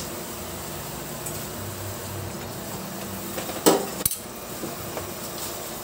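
Metal kitchenware clanking: a couple of loud, sharp clanks about three and a half seconds in, with a few lighter clicks, over a steady hiss.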